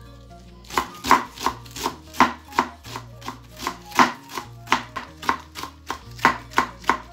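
Kitchen knife shredding cabbage on a wooden chopping board, the blade striking the board in an even rhythm of about three cuts a second after a short pause at the start.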